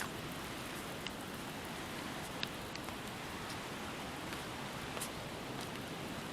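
Steady rain falling, an even hiss with a few sharp ticks of single drops about one, two and a half and five seconds in.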